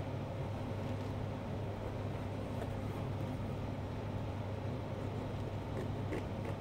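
Steady low hum of room background noise, with a few faint light ticks as a small carving knife cuts through pumpkin rind, most of them near the end.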